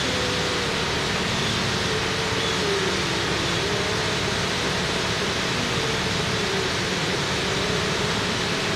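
Steady rushing noise with a faint hum that wavers slowly up and down in pitch.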